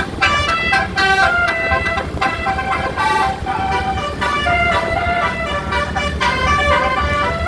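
Telolet horn, the multi-tone musical air horn fitted to Indonesian buses and trucks, playing a tune: a quick run of horn notes stepping up and down in pitch, over a steady low rumble.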